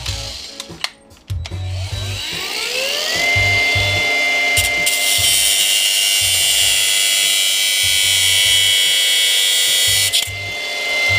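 A high-speed power tool spins up with a rising whine, then runs at a steady pitch. From about four seconds in until about ten seconds it bites into the aluminum fire-hose coupling with a harsh hiss, then eases back to free running. Background music with a steady bass beat plays underneath.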